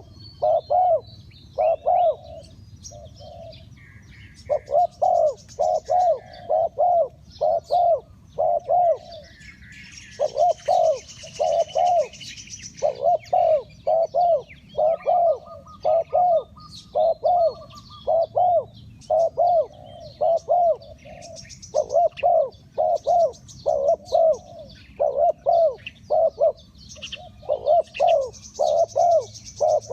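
Spotted dove cooing: a long run of short, arched hooting notes in groups of two to four, repeated over and over. Small birds chirp faintly in the background.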